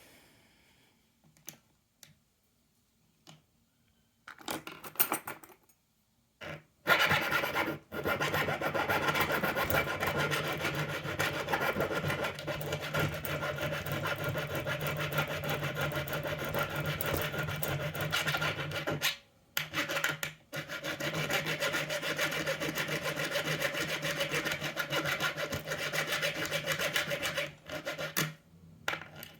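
Cordless drill running under load, drilling with a steady motor hum under a dense rasping. It starts about a quarter of the way in, after a few faint clicks, and stops briefly twice before running on.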